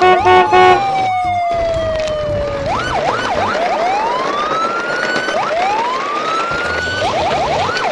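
Electronic police siren going through its patterns: a few quick beeps, then a long falling tone, a fast up-and-down wail, two slow rising whoops, and quick yelps near the end.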